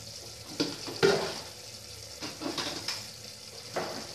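A spoon stirring and scraping thick curry gravy in an open aluminium pressure cooker, heard as four or five separate short scrapes and clinks.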